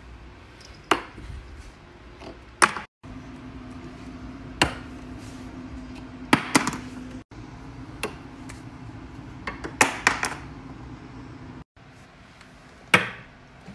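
A small plastic glue stick knocked over and off ledges by a cat, clattering and knocking onto wooden stairs and floor: a string of sharp knocks, several coming close together. A steady low hum runs under the middle part.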